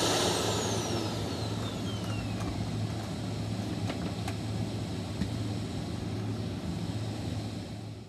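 Shark Navigator Lift-Away Professional upright vacuum cleaner running on a rug. A whine falls in pitch over the first few seconds, then the vacuum runs on steadily with a low hum and a few light clicks about four seconds in. The sound fades out at the very end.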